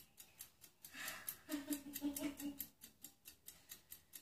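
A rapid, even ticking, about five clicks a second, with a faint voice heard about a second in.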